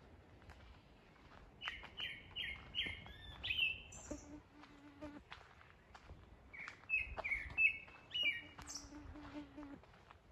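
Woodland birdsong: a bird sings a run of quick repeated whistled notes twice, with a few fainter high chirps. Twice a flying insect buzzes by for a second or so.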